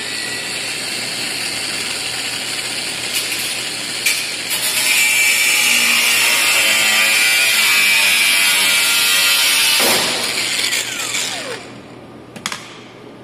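Angle grinder cutting off a seized, cross-threaded fender bolt that cannot be unscrewed. It runs at a steady high whine, grinds louder from about four and a half seconds in to about ten seconds while the disc bites into the bolt, then winds down with a falling whine.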